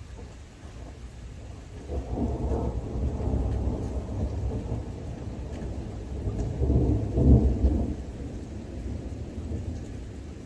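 Thunder rumbling over steady rain. The rumble rolls in a couple of seconds in, peaks loudest about three quarters of the way through, then fades away.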